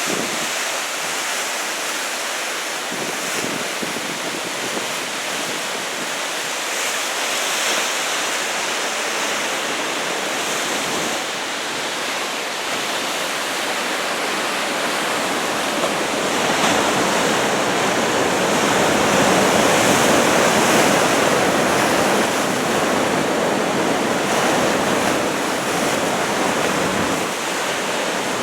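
Ocean surf: large typhoon-swell waves breaking and washing in as a continuous rushing noise. It grows louder for several seconds about midway through, then eases.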